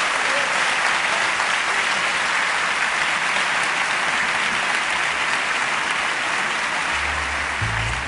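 Audience applauding steadily. Low music notes come in near the end.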